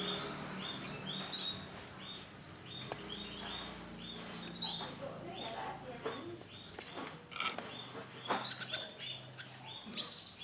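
Male canary chirping: a steady series of short, high call notes about two and a half a second, with a few higher notes mixed in.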